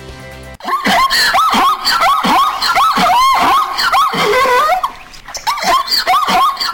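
Zebra calling: a fast series of high yelping barks, each rising then falling in pitch, about three a second, starting about half a second in and pausing briefly near the end.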